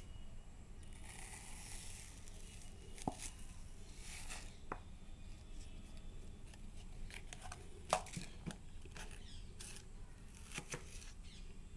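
Faint handling noises: scattered clicks, taps and scraping as a spoon digs into homemade ice cream in a plastic tub.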